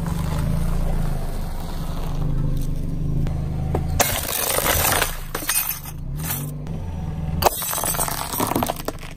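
A car tyre rolls over and crushes objects: first a roll of chocolate cookies crunching, then about four seconds in a wall clock's glass front cracks and breaks with a burst of crackling and clinking, with more crackling near the end. A low steady hum runs underneath.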